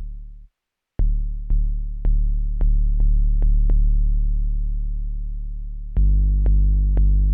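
KORG Volca Kick analog synthesizer playing a pattern of low, booming kick-bass notes, each opening with a sharp click and ringing on with a long decay. A note fades out and stops within the first second, and after a short gap the hits come at an uneven rhythm. About six seconds in, the notes become louder and fuller.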